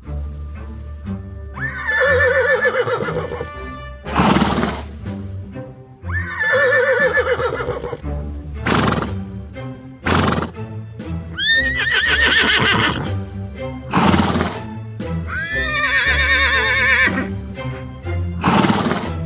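Recorded horse whinnies, four wavering calls spaced about four seconds apart, with short blowing bursts between them, over background music with a steady accompaniment.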